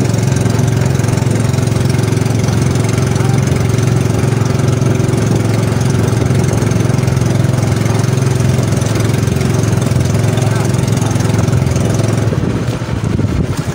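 Small inboard engine of a motorized outrigger boat running steadily under way, a constant low hum, with water rushing and splashing along the hull and bamboo outrigger.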